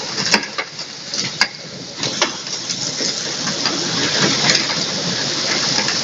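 Heavy rain mixed with hail hissing steadily, with a few sharp clicks of single hailstones striking close by, about a third of a second, a second and a half, and two seconds in.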